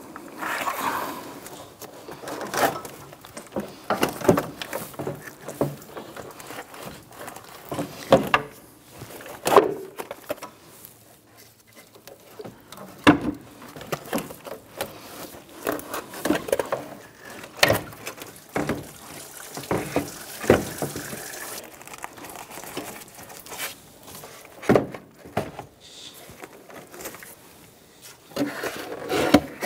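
Irregular clicks, knocks and light rattles of gloved hands handling and shifting a car's radiator and AC condenser and the plastic trim around them.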